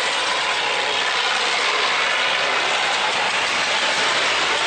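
Boat engines running steadily over fast water churning through a sluice gate, together making one continuous din.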